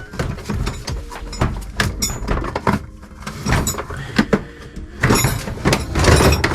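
Gear being rummaged through and shifted about: a string of irregular knocks and clunks with scraping and rustling, louder about five seconds in.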